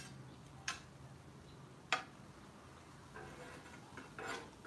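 Metal spatula clicking sharply three times against the flat-top griddle and plates, then scraping softly as food is shifted on the plates.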